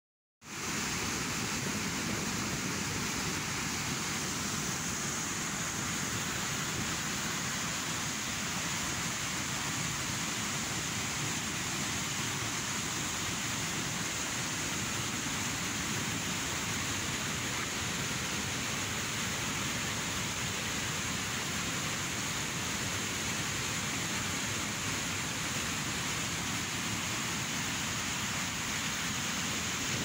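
Muddy floodwater of a river swollen by a flash flood, rushing and crashing over boulders and small falls in a steady, loud rush of white noise.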